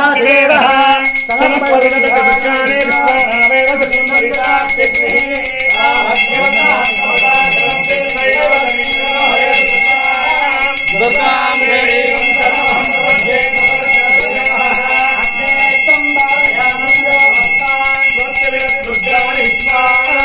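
Hanging brass temple bell rung continuously by hand, its high ringing tones sustained without a break, with a voice going on underneath.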